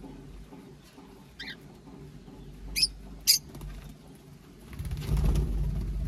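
Small pet parrots (budgerigars, lovebirds, cockatiels) giving a few short, sharp high chirps, the two loudest about half a second apart midway. About a second of louder rustling comes near the end.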